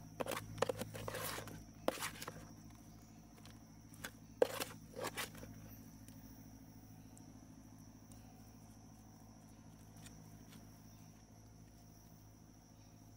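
Several short knocks and scrapes over the first five seconds, then only a steady low hum.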